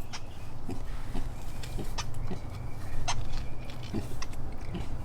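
Hands digging and scraping in firmly packed soil, giving scattered sharp clicks and scratches over a steady low hum.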